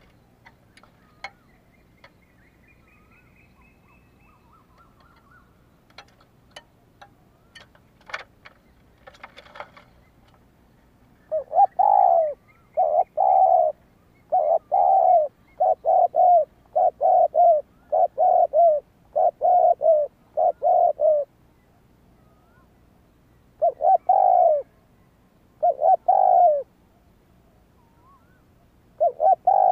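Spotted dove cooing at close range: a run of about nine coos over some ten seconds, then three more with pauses between them. Before the cooing there are only a few faint clicks and distant birds chirping.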